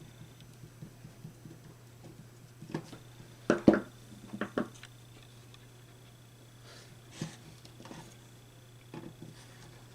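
Scattered light clicks and knocks of hands connecting wires to a power supply and relay circuit terminals, the loudest pair about three and a half seconds in, over a steady low hum.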